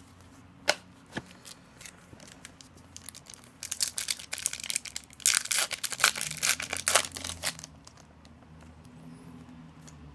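A foil hockey-card pack wrapper being torn open and crinkled, a dense crackling that runs for about four seconds in the middle. Before it come a couple of sharp clicks as cards are handled.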